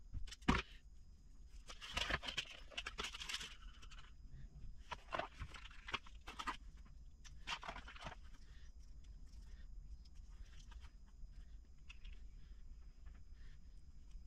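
Faint, scattered clicks and rustles of hand-handling at a workbench: a self-adjusting wire stripper being worked on a wire and small plastic parts boxes being handled. The sounds are busiest in the first half and thin out later.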